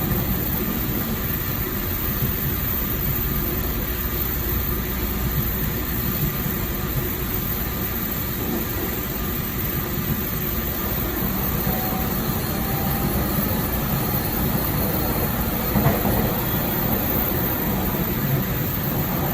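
Taiwan Railways EMU3000 electric multiple unit heard from the gangway connection between cars while running: a steady low rumble of wheels and car body, with one brief louder clatter about 16 seconds in.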